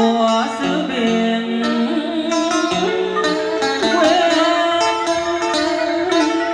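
Music: a ballad's backing track led by a plucked-string melody with some sliding notes over a steady chord and bass bed, joined at times by a male singer's voice.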